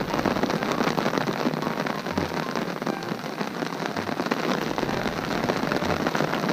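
Torrential downpour: a steady, even hiss of heavy rain, raining buckets.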